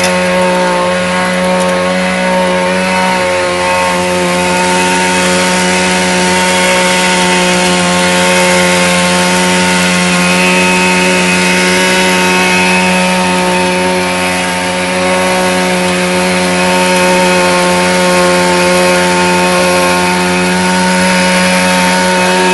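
Mini garden cultivator driven by a brush-cutter engine, running steadily with a high, even whine. Its level dips briefly about fourteen seconds in.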